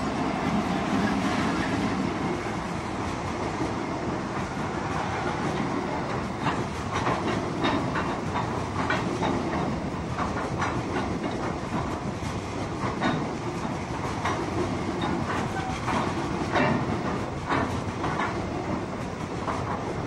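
A loaded coal train running past: an EWS Class 66 diesel locomotive's engine rumbles by at first. Then a long rake of hopper wagons rolls past, their wheels clacking irregularly over the rails from about six seconds in.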